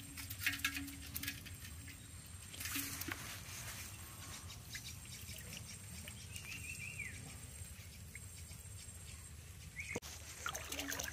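Water dripping and pattering with crackly rustling as a bamboo shrimp trap is shaken out into a metal pot, shrimp and water dropping in. The sounds come in crackly spells early on and around three seconds in, then a steadier wash of water. A sharp knock or splash comes about ten seconds in.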